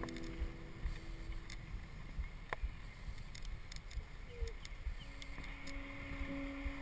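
Low steady rumble of wind and road noise from riding a recumbent bicycle, with scattered light clicks and one sharper click about two and a half seconds in. Background music fades back in with a held note about five seconds in.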